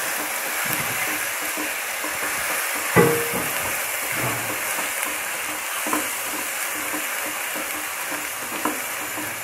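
Ground onion and ginger-garlic paste frying in oil in a nonstick kadhai, a steady sizzle as a spatula stirs it. The spatula knocks against the pan once about three seconds in, and more lightly near six seconds.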